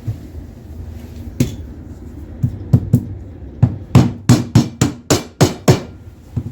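Hammer taps knocking a rigid-core vinyl floor plank into place: a few spaced knocks, then a quicker run of about three a second.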